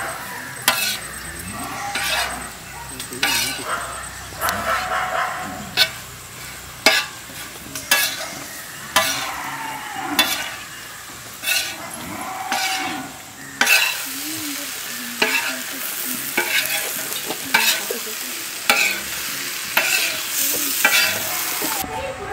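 Metal spatula scraping and turning shredded parotta on a large iron pan, the food sizzling in the oil. Sharp scrapes and clacks come roughly once a second.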